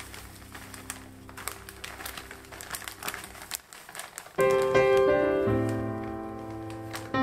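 Plastic packet of dried bonito flakes crinkling as the flakes are shaken out into a bowl, a run of light crackles. About four seconds in, louder piano music starts.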